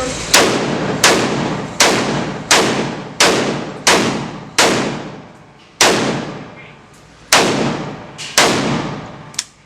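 Gunshots at a shooting range: a quick string of about seven shots, roughly one every 0.7 s, then three more spaced further apart and a fainter one near the end. Each shot has a long echoing tail.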